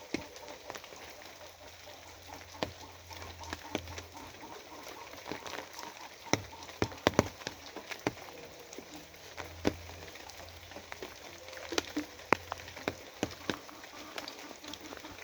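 Rain falling steadily, with heavy drops tapping sharply and irregularly on a hard surface close by, several loud taps bunched together about halfway through and again near the end.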